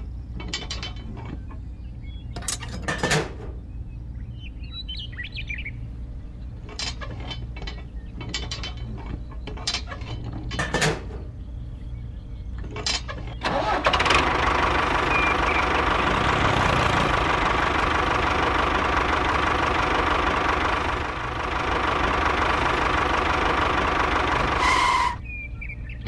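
Short clicks and knocks of small toy parts being handled, over a low steady hum. About halfway through, a loud, steady engine-like running sound of the miniature toy tractor starts, then cuts off suddenly near the end.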